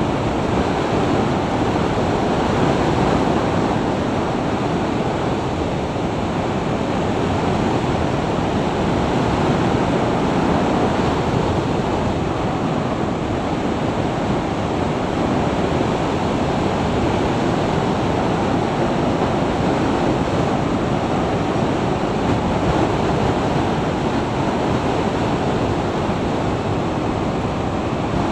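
Steady, loud wind rush buffeting the microphone of an action camera on a motorcycle at highway speed (about 55–60 mph), with road and engine noise buried in it and no engine note standing out.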